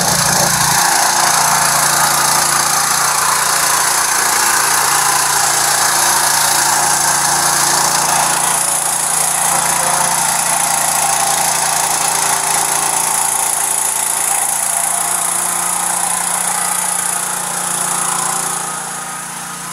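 Small engine running steadily at a constant speed, the motor of a pump drawing used cooking oil through hoses into a truck.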